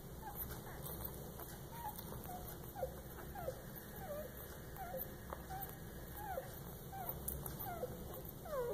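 Newborn puppies squeaking and whimpering faintly while they nurse: short high squeaks that drop in pitch, about one or two a second.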